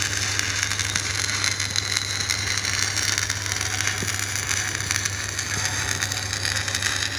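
Electric arc welding on a metal tank: a steady crackling sizzle from the arc, with a steady low hum underneath.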